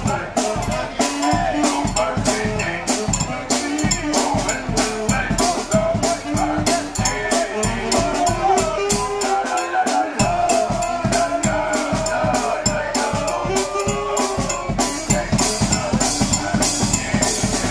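Charanga street brass band playing: a steady drumbeat with bass drum and snare under a brass melody.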